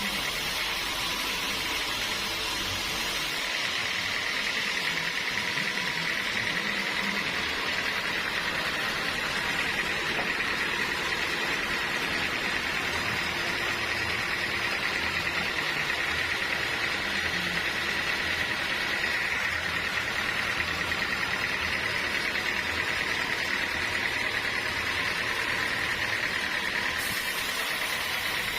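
Sawmill machinery running steadily: a constant mechanical noise with a steady high whine over it.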